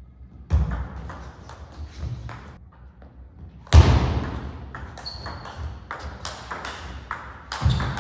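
Table tennis rally: the ball clicking in quick succession off the rackets and the table. There is a loud thump with a ringing tail about four seconds in, a short high squeak soon after, and another loud hit near the end.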